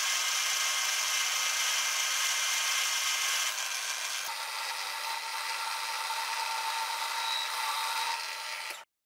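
Amadeal BL290VF-type bench lathe running and turning a steel toolpost stud with a light finishing cut. It makes a steady cutting hiss, and a faint steady whine joins it about four seconds in. The sound stops suddenly near the end.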